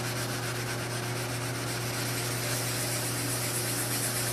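Wet 1500-grit sandpaper rubbed lightly by hand over a car's painted clear coat to sand out a scratch: a steady, even scratchy hiss. A constant low hum runs underneath.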